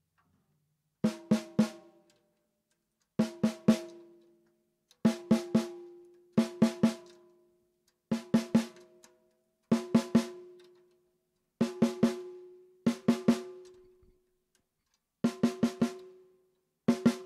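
A 12x7 Australian wandoo stave snare drum struck in quick groups of three. Each group rings out with a clear drum tone and decays before the next, about ten groups in all.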